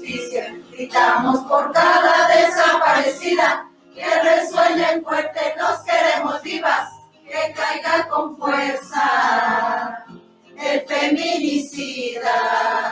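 A group of voices singing a Spanish-language protest song together, in sung phrases of a few seconds separated by short breaths.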